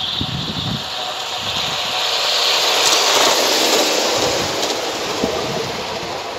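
Scale model train running along its outdoor track, a rushing hiss of wheels on rails that grows louder as it approaches, is loudest as it passes about three seconds in, then fades.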